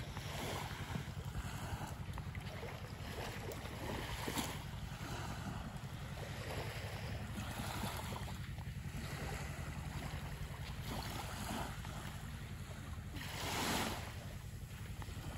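Small waves lapping and washing on a sandy shore, rising in a louder wash near the end, over a steady low rumble of wind on the microphone.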